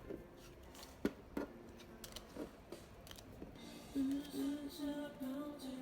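Two sharp clicks a little after one second in, with light handling noise, as photocards are gathered and stacked into a pile. Soft background music, more noticeable in the second half.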